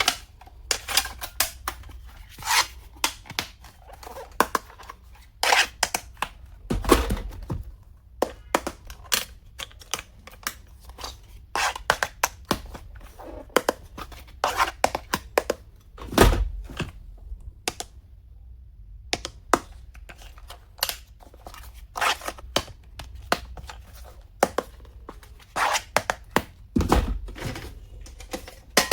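Stationery and its packaging being handled: an irregular run of sharp clicks and taps from small plastic items, with three heavier thumps spread through.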